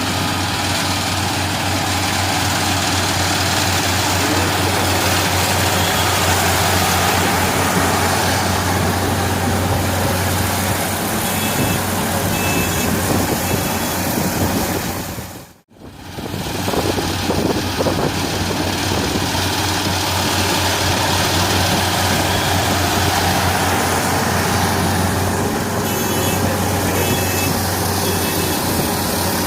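Combine harvester running steadily at work, its engine and machinery a continuous loud hum. The sound drops out for a moment about halfway through, then resumes.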